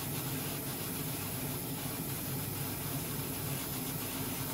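Clear lacquer coat being sprayed onto a model car wheel: a steady spraying hiss with a low, even hum underneath.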